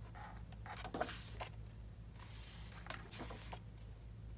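Faint handling of paper items: light taps and rustling, with a brief sliding rustle about two seconds in.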